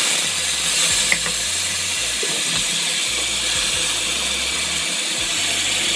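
Wet ground tomato puree sizzling in a pan of hot oil tempered with mustard seeds and garlic: a steady, loud hiss as the water in the puree boils off on contact.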